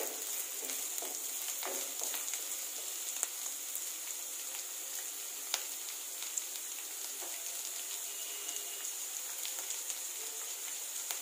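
Sliced onions, carrots, beans and green chillies sizzling in hot oil in a steel kadai. The hiss is steady, with a few scattered sharp pops.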